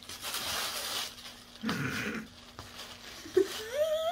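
Crumpled tissue paper rustling and crinkling as a cat pushes and paws through it. Near the end a long pitched vocal sound rises and then holds steady.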